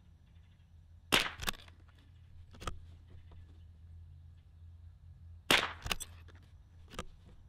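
CZ Varmint MTR bolt-action .22 LR rifle firing ELEY Tenex match rounds: two shots about four seconds apart, each followed by a quick second crack and, about a second and a half later, a lighter click as the bolt is worked.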